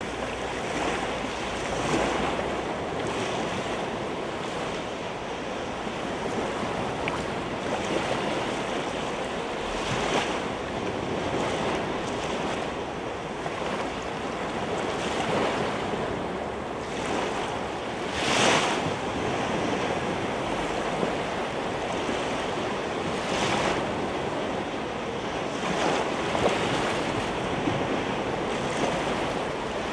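Sea waves washing in, a steady rush that swells louder with each wave every few seconds; the biggest surge comes about two-thirds of the way through.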